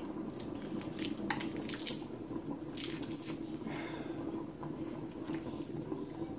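Hands breaking apart dry smoked fish and picking out the bones: scattered short crackles and rustles over a steady low hum.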